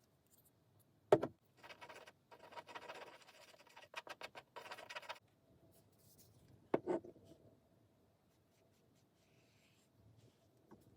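Two sharp knocks, one about a second in and one near seven seconds, with a few seconds of scraping and rustling between them, as objects are handled on a work surface.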